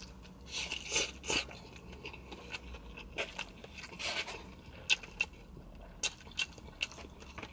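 A person chewing a mouthful of stir-fried noodles close to the microphone: irregular wet smacks and clicks, faint.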